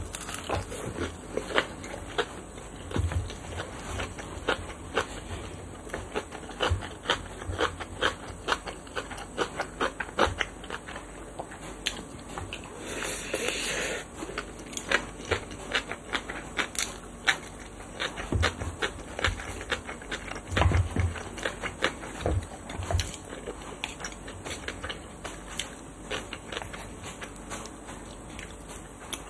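Close-miked eating: chewing and mouth smacks with irregular clicks of wooden chopsticks and spoon against wooden bowls, and a short breathy hiss around the middle.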